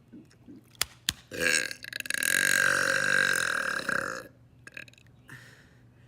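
A man's long, loud burp, about three seconds of continuous belching with a wavering pitch, preceded by two sharp clicks.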